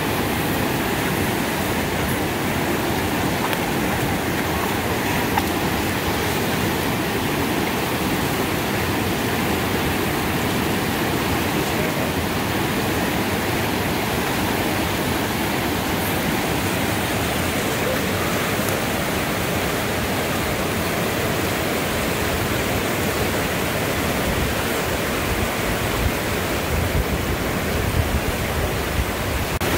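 River rapids rushing over and around boulders in a steady, loud roar of whitewater.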